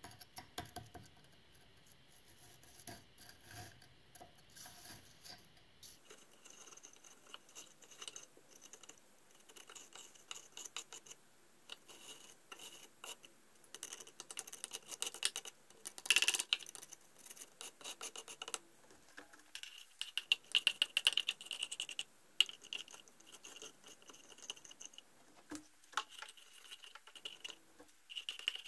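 A screwdriver scraping light, flaky rust out of the rusted housing of a trash pump, in irregular scratching strokes. The scraping is louder about halfway through and again a few seconds later.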